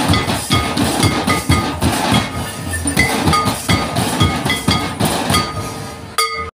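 A group of large shoulder-slung hide drums beaten with sticks in a fast, dense rhythm, with short ringing metallic clinks among the strokes. The drumming stops abruptly near the end.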